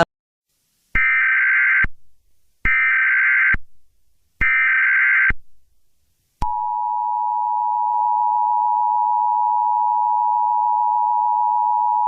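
Emergency Alert System header: three short bursts of screeching digital data tones, each about a second long and about a second apart. About a second after the third, the steady two-tone EAS attention signal starts and holds.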